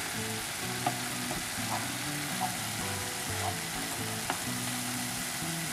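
Minced meat filling frying in a pan with a steady sizzle while a wooden spatula stirs it, knocking lightly against the pan a few times.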